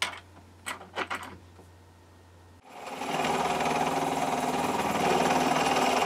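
End mill on a Dore Westbury milling machine cutting the side of a metal engine column held in a machine vise, a loud, steady, chattering cut that starts about two and a half seconds in, after a few clicks as the table is set.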